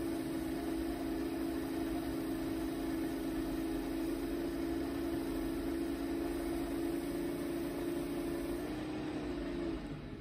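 Small electric spindle motor running steadily with an even hum, turning a spiral cutting bit in its collet. Near the end the hum shifts slightly in pitch and then dies away as the motor stops.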